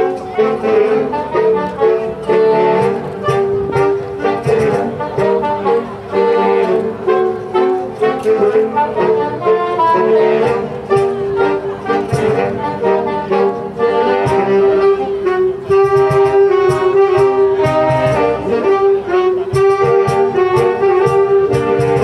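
Saxophone ensemble playing a Latin-style suite live, several saxophones in harmony over a steady percussion beat.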